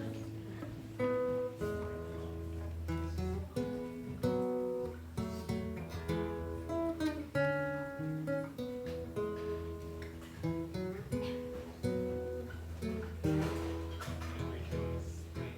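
Solo instrumental introduction to a song: single picked notes over a held low bass note, with no singing yet.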